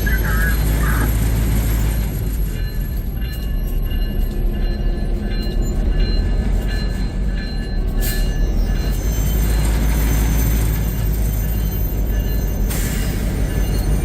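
EMD SD9M diesel-electric locomotive running, heard from inside its cab: a steady, loud low rumble with faint steady tones above it. A short click about eight seconds in and a brief hiss near the end.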